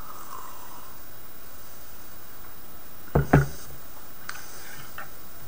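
A ceramic mug set down on a wooden desk: two sharp knocks in quick succession about three seconds in, over a steady low hiss, followed by a few faint clicks.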